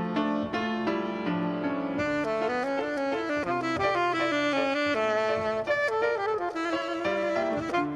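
Alto saxophone playing a slow hymn melody over piano accompaniment, the saxophone line growing fuller about two seconds in.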